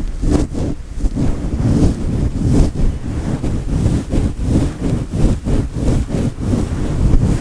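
Fluffy microphone windscreen being rubbed and stroked close to the microphone: a loud, muffled rumbling rustle that swells and fades in quick irregular strokes.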